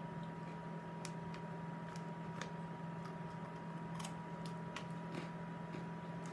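Snyder's Butter Snaps pretzels crunching and their snack bag crinkling as they are eaten: scattered, irregular sharp crackles, about nine in all, over a steady low hum.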